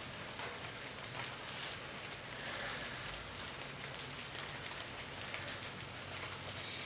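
Steady rain falling, with many scattered drops ticking close to the microphone.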